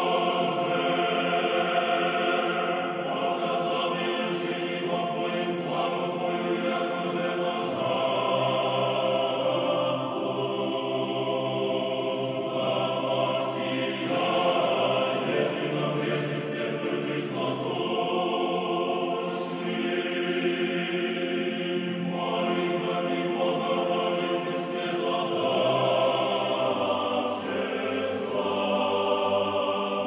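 Church choir singing an Orthodox liturgical chant in sustained chords that change every few seconds.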